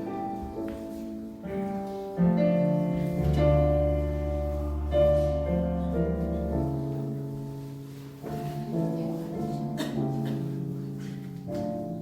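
Electronic keyboard playing a slow hymn arrangement in sustained chords, with a deep bass note held for a few seconds in the middle.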